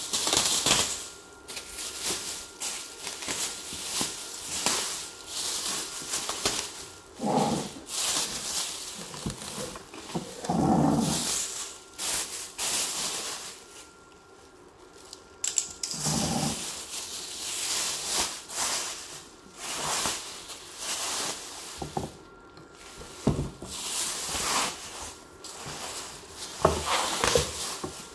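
Clear plastic wrapping crinkling and rustling in irregular bursts as it is pulled and bunched off a new upholstered office chair. A few shorter, lower sounds are mixed in.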